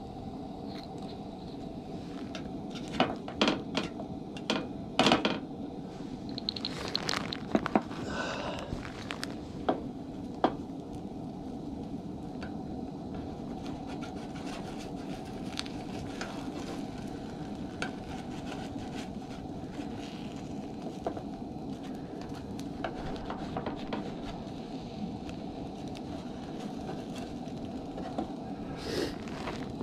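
Eggs in a basket frying in olive oil in a nonstick pan on a propane camp stove: a steady sizzle and burner hiss. A few sharp clacks and knocks of the pan and oil bottle being handled come in the first ten seconds, with a couple more near the end.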